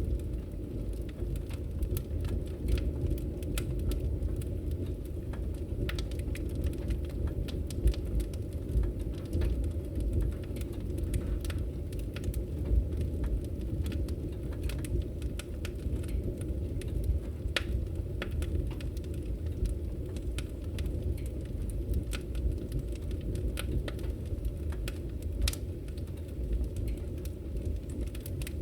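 Firewood burning: a low, steady rumble of flames with frequent sharp crackles and pops at irregular intervals.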